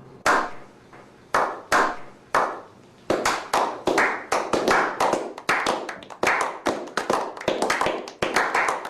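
Hands drumming on something resonant: sharp slaps that each ring briefly, a few spaced strikes at first, then a quicker, uneven beat from about three seconds in.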